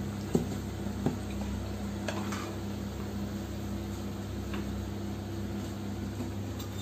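A slotted metal spoon clinks sharply twice against the frying pan and plate, about a third of a second and a second in, with a few fainter ticks later, as fried pakoras are lifted out of the oil. A steady low hum from a kitchen appliance runs underneath.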